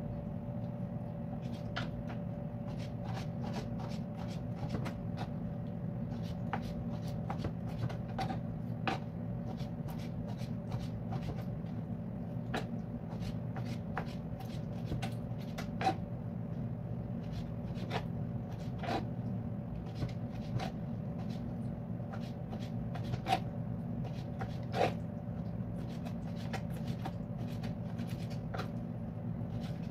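Kitchen knife slicing raw goat liver on a plastic cutting board, making irregular light taps of the blade on the board, a few a second, with some sharper ones. A steady low hum runs underneath.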